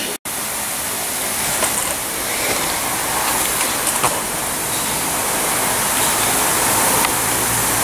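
A steady rushing hiss, with a few faint light clicks.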